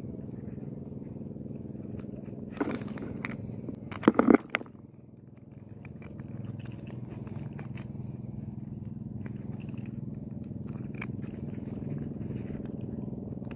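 A boat engine running with a steady drone. Two loud bursts of noise come about two and a half and four seconds in, and light scattered clicks follow.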